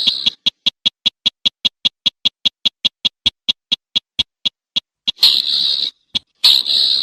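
Slaty-breasted rail calling: a long run of short, sharp, high notes at about five a second, slowing slightly. Near the end come two longer, raspy calls a little over a second apart.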